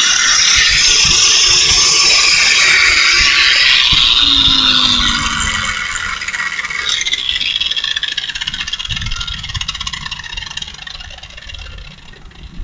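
A 4.5-inch Chicago heavy-duty angle grinder grinding, a loud high hissing screech. About five seconds in it eases off and the motor pitch drops, then grinding carries on more quietly.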